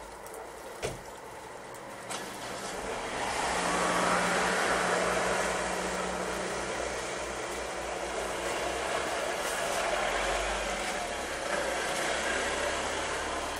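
A motor vehicle passing on the street, its engine and tyre noise swelling a few seconds in and slowly fading, with a steady low engine hum while it is loudest. A single sharp click comes about a second in.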